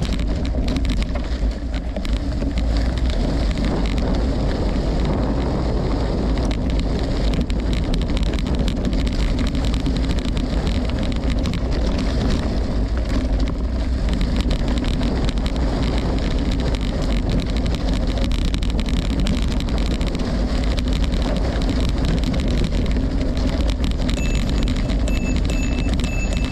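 Steady wind rushing over the microphone, mixed with the rolling noise of a gravel bike. Near the end a short high-pitched tone sounds several times in quick succession.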